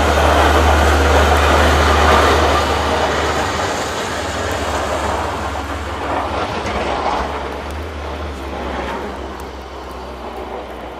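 Snowplow truck driving past: a deep engine rumble under a broad rushing noise, loudest in the first few seconds and fading steadily as it moves away.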